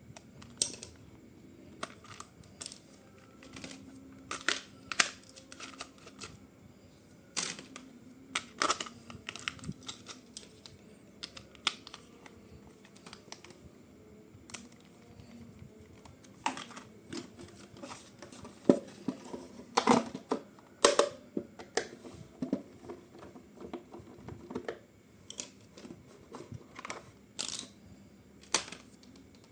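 Toy packaging being handled and opened by hand: irregular crinkles, rustles and sharp plastic clicks, in clusters with short pauses between.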